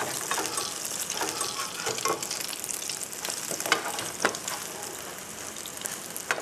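Grated-potato pancakes sizzling in hot oil in a nonstick skillet. A metal slotted spatula clicks and scrapes against the pan now and then as it slides under the pancakes to turn them.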